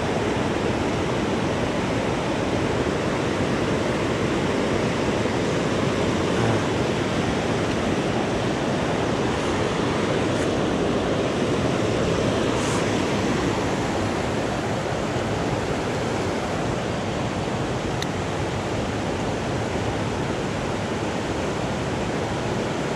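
Steady rush of flowing river current, an even noise without a break, with a few faint ticks.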